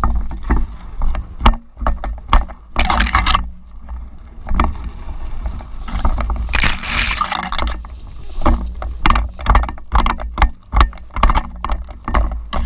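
Live field sound of a person pushing through dense scrub in tactical gear: irregular knocks and clatter of footsteps and gear, two longer stretches of brush rustling against clothing, and a constant low rumble on the microphone.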